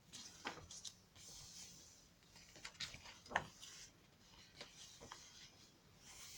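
Faint rustling and soft crinkling of paper pages in a handmade glue book being turned and handled, with scattered small clicks and one sharper click a little past halfway.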